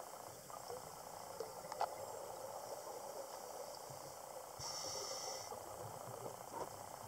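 Scuba breathing heard underwater: steady bubbling of exhaled air from a diver's regulator, with a sharp click about two seconds in and a short hiss about two-thirds of the way through.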